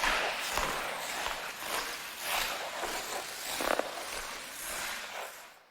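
Ice skate blades scraping and gliding over ice in repeated strokes, fading out near the end.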